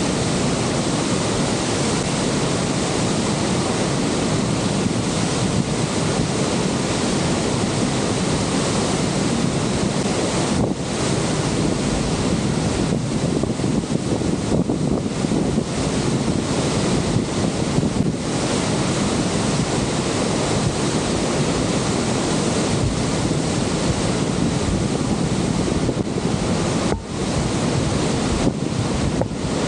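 Steady roar of the Horseshoe Falls, with wind buffeting the microphone.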